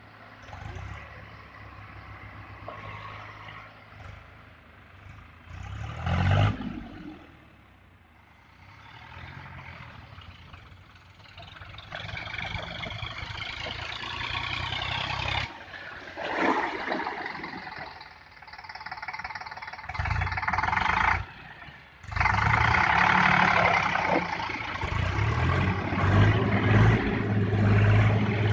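Farm tractor engines running and being driven, with a steady low rumble that swells and drops as the engines are revved and ease off, loudest in the last few seconds.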